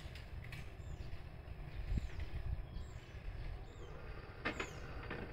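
Small birds chirping, short high calls that fall in pitch, repeated every half second or so over a low steady rumble of outdoor background noise. A dull thump comes about two seconds in and a sharp knock near the end.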